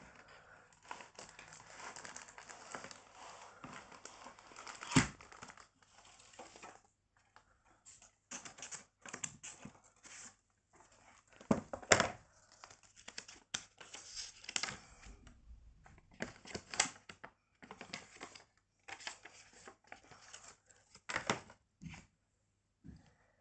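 Unboxing handling noise: a cardboard toy box is opened and a plastic-bagged toy train is pulled out. There is crinkling and rustling of the plastic bag and scraping of cardboard, broken by sharp knocks, the loudest about 5 and 12 seconds in.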